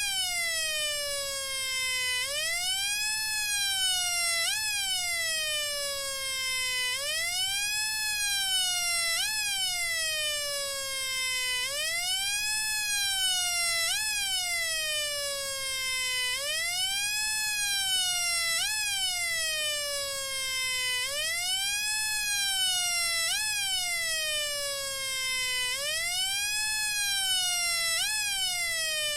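Homemade two-555-timer siren circuit sounding through a speaker: a buzzy electronic tone wailing up and down like a police siren. Each cycle of about five seconds holds a long rise-and-fall followed by a shorter one, and the pattern repeats steadily.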